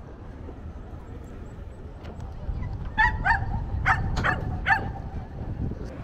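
Five short animal calls in quick succession, about halfway through, over a low steady rumble.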